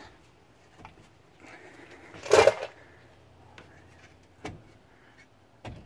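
Rusty brake drum on a 1950 Dodge Coronet being worked off its hub by hand, with a loud scrape lasting about half a second a little over two seconds in and a few lighter knocks around it. The brake shoes seem to be catching on the drum.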